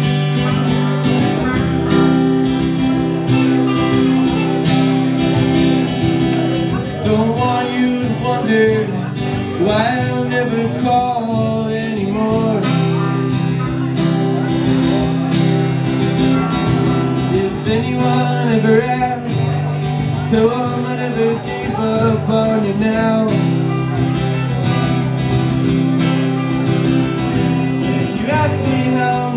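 Live acoustic guitar strumming chords along with an electric guitar, and a man singing from about seven seconds in.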